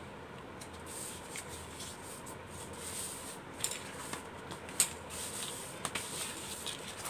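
Chart paper rustling and sliding as hands press and smooth a folded, glued greeting card, with a few short, light clicks.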